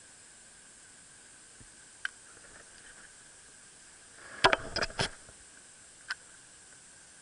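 Sharp clicks and knocks of handling close to the microphone: one about two seconds in, a loud quick cluster halfway through, and one more near the end, over a steady faint hiss.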